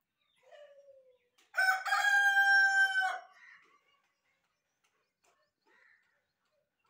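Rooster crowing once: one loud, held call about a second and a half long, preceded by a faint, short, falling call.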